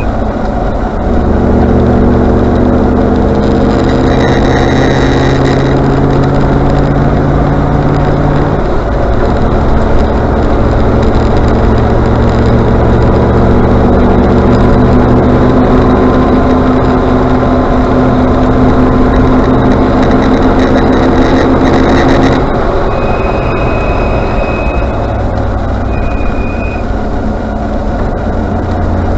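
Range Rover Classic under way, its engine pulling steadily with a drop in pitch at a gear change and again as it eases off near the end. The brakes then give two short high-pitched squeals, the first about two seconds long and the second briefer.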